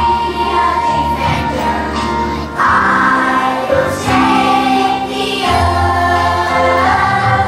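A group of young children singing a song together over instrumental backing music.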